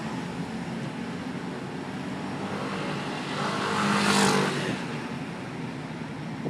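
Steady engine and road noise heard from inside a moving car's cabin. About four seconds in, a motor scooter overtakes close alongside: its sound rises to a loud peak and then fades as it pulls ahead.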